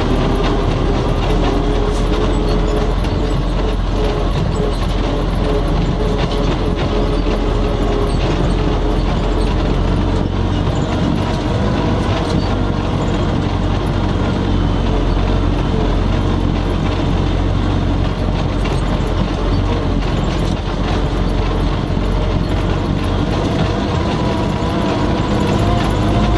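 MTZ-80 tractor's four-cylinder diesel engine running steadily under the load of two loaded grain trailers, heard from inside the cab, with constant rattling and knocking of the cab and its fittings.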